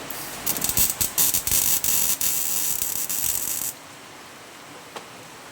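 Electric welding arc crackling and spitting in short stuttering bursts for about three seconds while a tack weld is laid on the repair panel in the car's steel boot floor, then cutting off.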